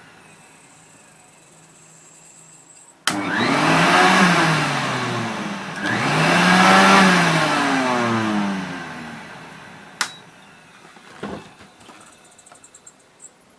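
1996 Atlas water-filter vacuum cleaner's motor switched on with a click, whining up in pitch and then winding back down, done twice in a row. A sharp click and a few light knocks follow near the end.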